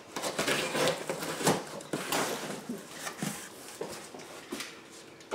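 Box cutter slicing along the packing-tape seam of a cardboard box, followed by the cardboard flaps scraping and rustling as they are pulled open. The sound is a run of irregular scrapes with a few sharp clicks.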